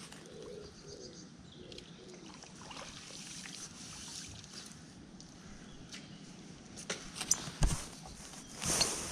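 Quiet outdoor ambience with faint bird calls in the first couple of seconds, then a few light clicks and a low thump about seven to eight seconds in.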